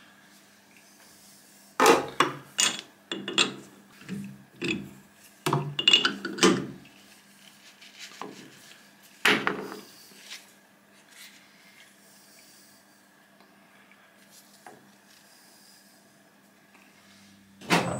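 Metal clunks and scrapes as the jaws of a lathe's four-jaw chuck are backed off and a square bar workpiece is worked loose and lifted out: a cluster of irregular knocks over several seconds, then only a faint steady hum.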